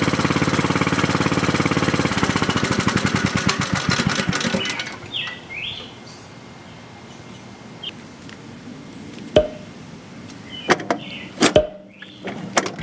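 Riding lawn tractor's Briggs & Stratton engine running, then shut off about two seconds in, its firing strokes slowing and dying out by about five seconds. Then birds chirp, and a few sharp knocks come near the end.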